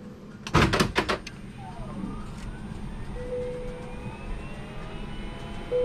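Airbus A320neo cockpit powering up: a quick run of sharp clicks, then several electrical whines gliding slowly up in pitch as the aircraft's systems and cooling fans spin up, with two short steady hums.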